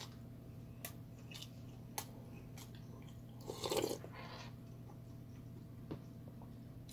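Eating sounds: chewing, a few sharp spoon clicks against a stone bowl, and a short, louder slurp of samgyetang broth about three and a half seconds in.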